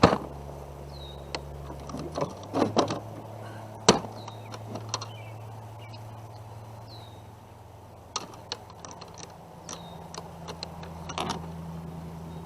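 Scattered knocks and clicks of a catfish and a fish-measuring board being handled, the sharpest about 4 seconds in and a cluster of them later, over a steady low hum.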